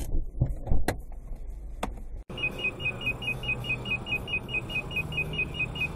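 A few sharp knocks, then a high electronic beep repeating several times a second over steady engine and road noise heard from inside a car.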